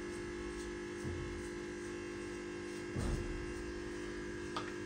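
Steady electrical hum made of several constant tones. Two soft low thumps about a second and three seconds in, as hands press the pastry on the counter.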